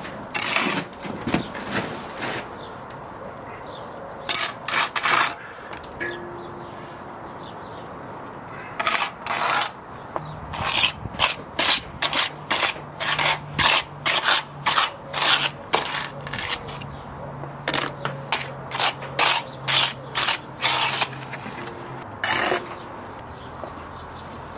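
Steel brick trowel scraping and scooping sand-and-cement mortar against brickwork as bricks are bedded and jointed: a run of short rasping strokes, sparse at first and then coming quickly one after another through the middle.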